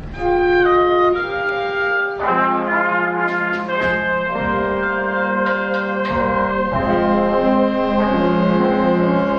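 School band with the brass in front playing a slow passage of held chords that change every second or so.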